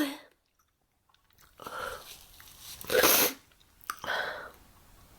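A person sneezing: a breath in, then a sharp sneeze about three seconds in, followed by a smaller second burst about a second later.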